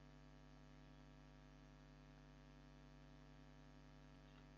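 Near silence, with a faint steady electrical hum.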